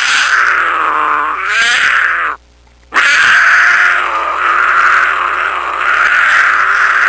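An animal giving two long, loud, drawn-out calls, with a short break between them about two and a half seconds in.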